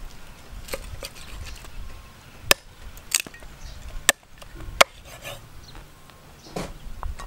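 Meat cleaver chopping through a raw black chicken on a wooden chopping block: three sharp chops in the middle, with softer knocks and cuts before and after.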